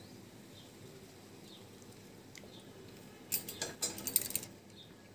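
A metal spoon clinking and scraping against a plate and bowl a few times in a quick cluster about three seconds in, as chickpea curry is spooned out; quiet before it.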